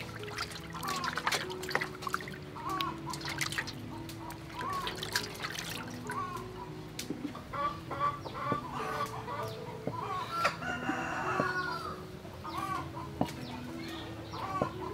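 Chickens clucking repeatedly, mixed with water sloshing in a metal bowl as tofu is washed, then a cleaver knocking on a wooden chopping board as the tofu is sliced.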